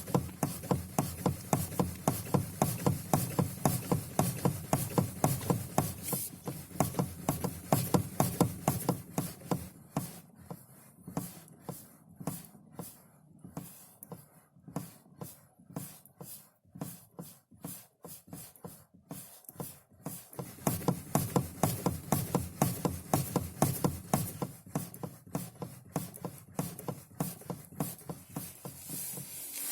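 Lada Kalina steering rack knocking as the steering wheel is rocked back and forth around centre. There are rapid repeated knocks, about five a second, weaker through the middle stretch. The knock comes only on returning to centre and keeps coming back despite a rebuilt rack, a new bushing and a new support spring.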